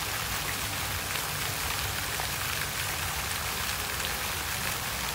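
Steady, even hiss of moving water, with faint scattered ticks.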